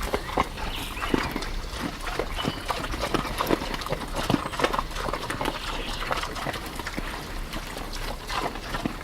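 Pigs eating: a dense, irregular run of wet chomping and smacking clicks mixed with short grunts.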